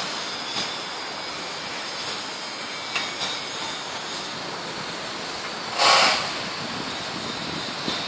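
Steady hiss of distant city traffic, heard from high above, with a short, louder burst of noise about six seconds in.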